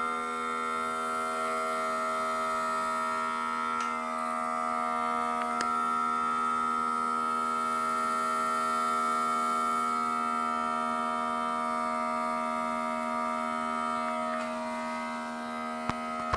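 Small electric air pump of a homemade smoke leak-finding machine running with a steady buzzing hum, with a few faint clicks.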